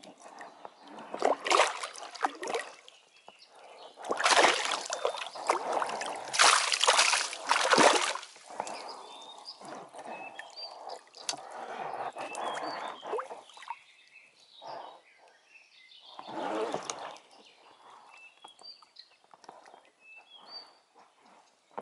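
Water splashing and sloshing in irregular bursts as a net fish trap is handled and pulled about in a shallow stream; the heaviest splashing comes a few seconds in, with a shorter burst near the end.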